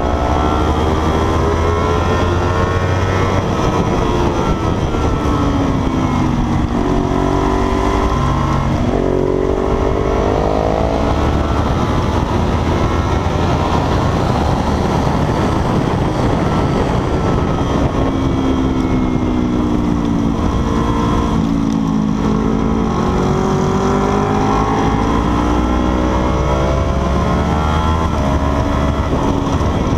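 Sport motorcycle engine at racing speed, revs climbing and falling as the rider accelerates out of corners and slows into them, dropping low twice before pulling up again, under a steady rush of wind noise.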